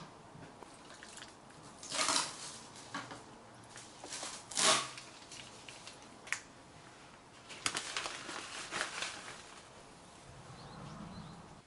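Plastic food packets crinkling and rustling in short bursts as toppings are shaken out of them onto a plate, with one sharp click in the middle. Near the end the packet is a resealable bag of shredded nori.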